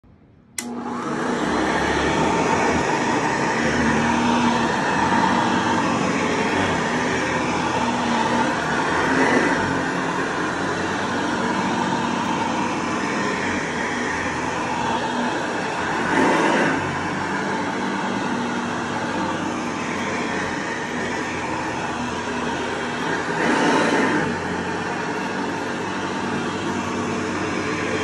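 1962 Hoover Model 68 Convertible upright vacuum cleaner starting abruptly about half a second in, then running steadily on shag carpet, a motor hum under a rush of air. It swells briefly louder three times.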